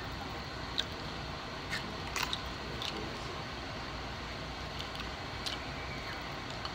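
Close-up eating sounds as seafood is handled and chewed: about half a dozen short, crisp clicks and crunches, the loudest near the start and around two seconds in, over a steady low background hum.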